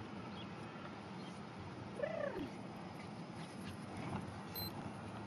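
A dog gives one short whine that rises and then falls, about two seconds in, over steady background noise.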